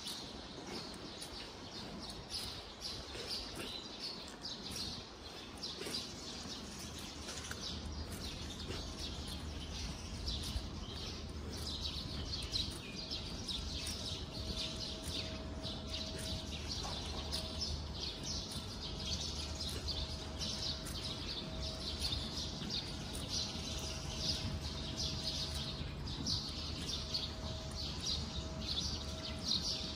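Many small birds chirping and twittering continuously in a dense chorus, over a steady low hum and a faint steady tone that come in a few seconds in.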